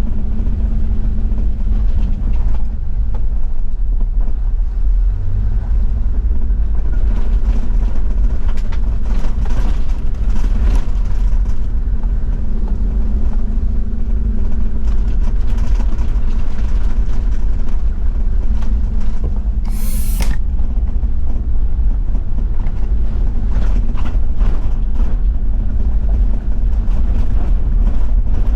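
Toyota Land Cruiser 70-series diesel engine running steadily while driving on an unpaved gravel forest road. Tyre rumble and scattered knocks and rattles come from the body over the rough surface. About two-thirds of the way in there is one brief, sharp, hissy scrape.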